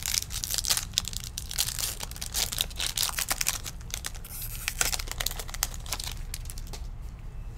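Foil wrapper of a 2021 Topps Stadium Club baseball card pack crinkling and tearing as it is ripped open and pulled apart by hand, the crackling busiest at first and thinning out near the end.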